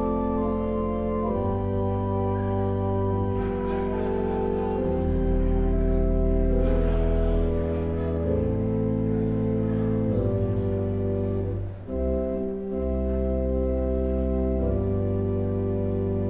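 Church organ playing a slow funeral prelude in sustained chords that shift every second or two, with a brief break between phrases about twelve seconds in.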